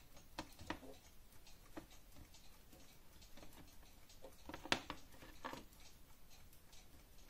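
Scattered light clicks and taps of small metal parts as the brass movement of an antique lantern clock is handled and turned, with a small cluster of clicks about five seconds in.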